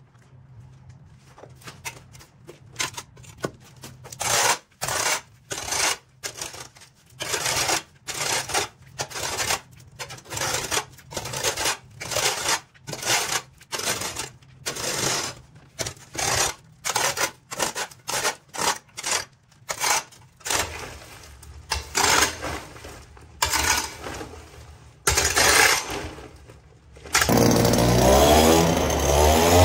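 Repeated scraping or sweeping strokes, about one a second, typical of yard clearing by hand. Near the end a small petrol engine starts up and revs, rising in pitch.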